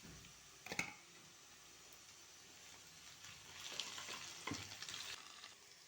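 Onion, potato and tomato paste frying in oil in a cooking pot, sizzling while being stirred, with a sharp knock about a second in; the sizzling and crackle grow louder for a while after the middle.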